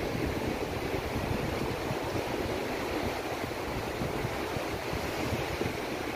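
Ocean surf washing onto the shore in a steady wash of noise, with wind rumbling on the microphone.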